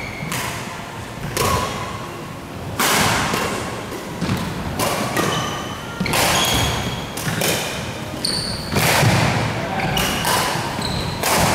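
Badminton rally: rackets smacking the shuttlecock roughly every second or so, with sneakers squeaking on the court floor between the shots. The sharp hits ring briefly in the hall.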